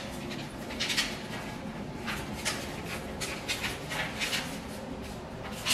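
Stiff brown kraft pattern paper rustling and scraping as hands fold and crease a dart closed, in short irregular strokes about once a second.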